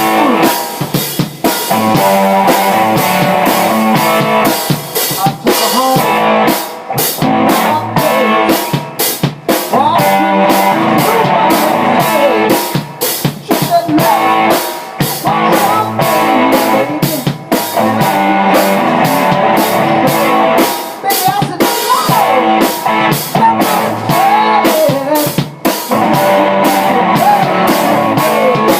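Band playing rock music: a drum kit keeps a steady beat under pitched instruments.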